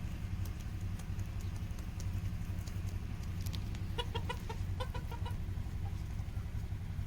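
A hen clucking in a quick run of short notes about four seconds in, over a steady low hum and scattered light ticks.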